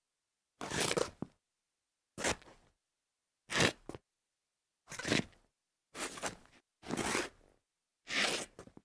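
Shoe soles scuffing on a tile floor: seven separate short scrapes, roughly one a second, with silence between them.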